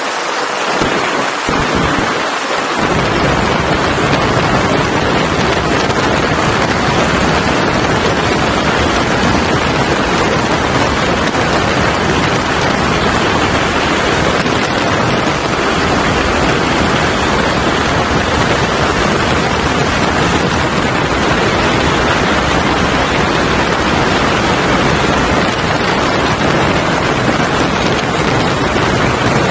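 Loud, steady wind noise buffeting the microphone of a camera mounted on a motorcycle riding at speed, mixed with tyre and road noise and covering the engine. The deep buffeting fills in about two to three seconds in and then holds steady.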